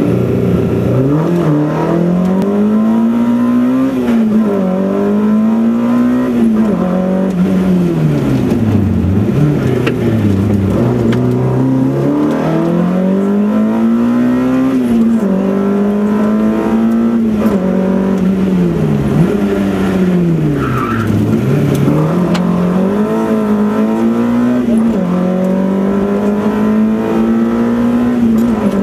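VW Golf Mk1 rally car's four-cylinder engine heard from inside the cabin at stage pace, revving up through the gears with quick drops at each upshift and sharp falls in pitch as the driver brakes and downshifts for corners. A brief high squeal about two-thirds through.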